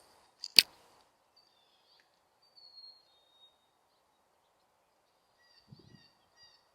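A single sharp click about half a second in, then faint, high, thin bird chirps now and then.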